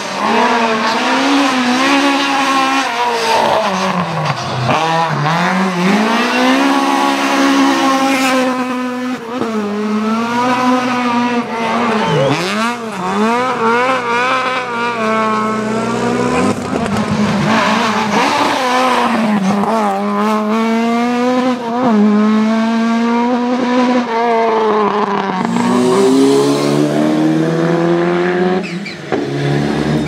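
Rally car engines revving hard at racing speed, pitch climbing and falling again and again through gear changes and lifts, with some tyre squeal.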